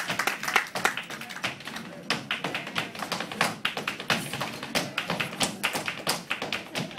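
Flamenco dancer's footwork: rapid, uneven shoe taps, many to the second, with faint music underneath.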